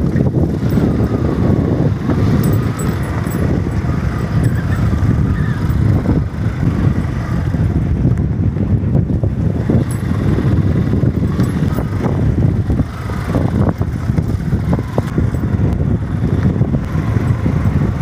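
Moving vehicle's rumbling road and engine noise, with wind buffeting the microphone.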